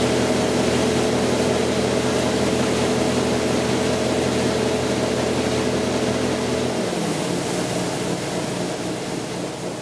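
Large diesel engine of a combine harvester running steadily at high revs. About seven seconds in, the engine note drops as it throttles down, and the sound fades toward the end.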